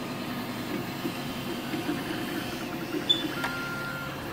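Creatbot FDM 3D printers running mid-print: a steady whirring hum of stepper motors and cooling fans, with a brief higher tone a little after three seconds in.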